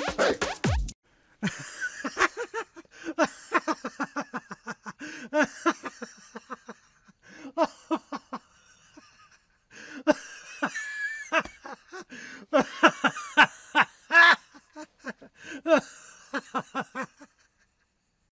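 Laughter-like vocal sounds: runs of short, breathy pulses, several a second, broken by brief pauses, with one wavering higher-pitched stretch about ten seconds in.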